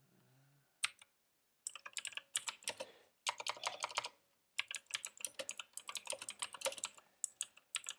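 Typing on a computer keyboard: a single keystroke about a second in, then quick runs of keystrokes with short pauses between them.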